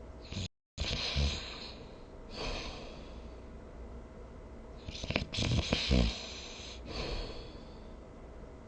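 A sleeper snoring. There are two snores, a short one just after the start and a longer, pulsing one about five seconds in, each followed by a breathy exhale. A split second of dead silence near the start sounds like an edit cut.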